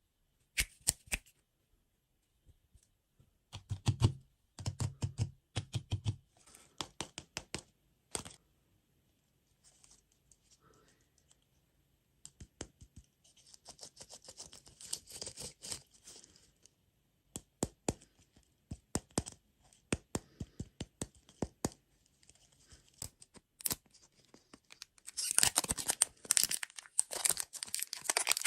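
Plastic food wrappers being torn open and crinkled, amid scattered taps and clicks from handling. The loudest, densest crinkling comes near the end.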